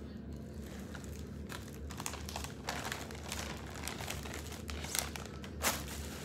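Packaging crinkling and rustling as items are rummaged out of a cardboard box: irregular crackles, with two sharper ones about five seconds in.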